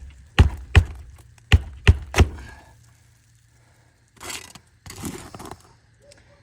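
Hammer driving roofing nails into asphalt shingles: five sharp strikes in quick pairs and threes, then a brief scraping of shingles or tools a couple of seconds later.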